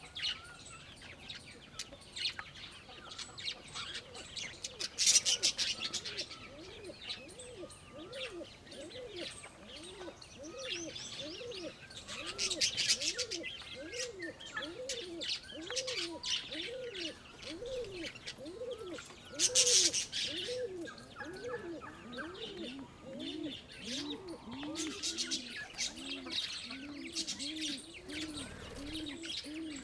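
Domestic pigeons cooing, a low arching coo repeated about once a second. Several loud bursts of rapid, high chirping from other aviary birds sound over the coos.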